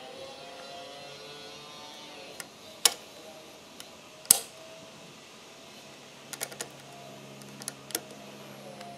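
Sharp metal clicks and taps from handling the bobbin case and rotary hook of a Singer 241-12 industrial sewing machine with fingers and a small tool: two loud clicks about three and four seconds in, then a few lighter ones. A low steady hum comes in about six seconds in.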